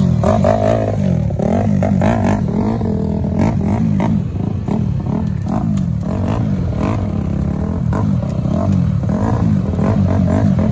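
ATV engine running close by as the machine rides a rough dirt trail, revving up and down over and over as the throttle is worked.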